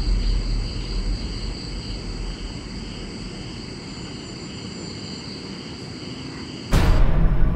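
Crickets chirring steadily in a night-time insect chorus, over a low rumble that fades away. Near the end a sudden loud burst of eerie music cuts in.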